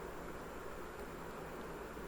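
Faint steady background hiss with a low hum: room tone and recording noise, no speech.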